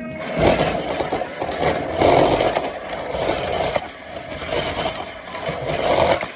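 Toy RC car being driven: its small electric motor whirs and its wheels rattle and scrape over a hard floor, rising in several surges as the throttle is worked.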